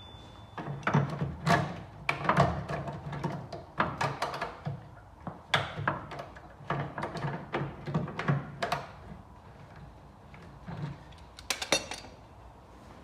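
Irregular metallic clicks and knocks from hand tools and a porta power hydraulic body ram being worked against a damaged steel sill panel to straighten it.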